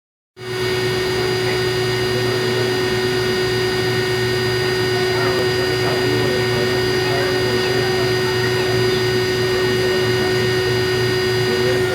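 Continental-Girbau washer-extractor running its drum at high speed, with a steady whine of several tones over a low rumble. The drum bearings are badly worn.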